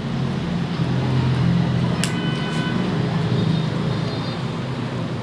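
Steel hair-cutting scissors snipping, one sharp snip about two seconds in that rings briefly with a metallic tone, then a fainter snip, over a steady low hum.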